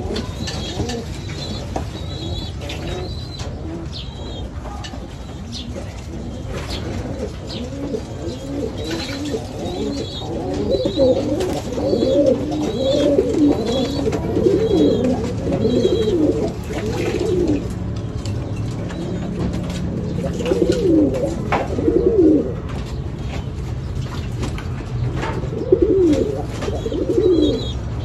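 Many domestic pigeons cooing in a loft, in overlapping low, wavering coos that swell from about a third of the way in and come again in bouts near the end.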